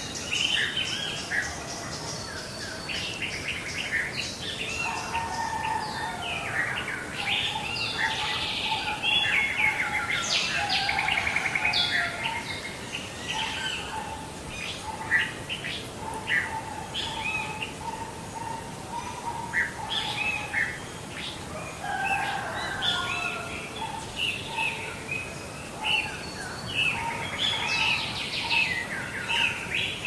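Several songbirds singing at once: overlapping chirps, trills and short whistled phrases, with a lower repeated phrase running through much of it.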